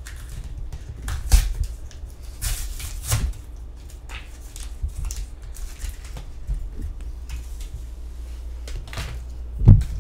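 A foil Pokémon booster pack being torn open and crinkled by hand, in scattered crackles, with a heavier thump near the end.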